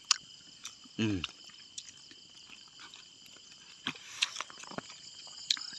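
A steady chorus of night insects calling in several high, even tones. A short voice sound comes about a second in, and there are a few faint clicks.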